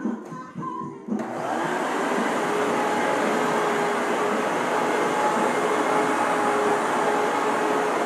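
Hoover WindTunnel upright vacuum cleaner switched on about a second in, then running steadily: a loud rush of air with a steady motor tone.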